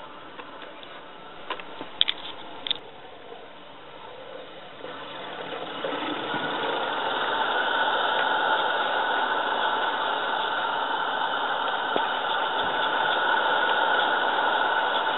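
Live-steam model locomotive pushing a snowplough through deep snow: a steady hiss that grows louder from about five seconds in as it comes up to the camera. A few sharp clicks come about two seconds in.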